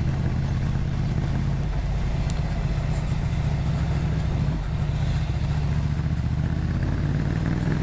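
Ducati Monster 797's 803cc two-cylinder engine running through a Termignoni exhaust, cruising steadily at low rpm in third gear with a deep, even exhaust note.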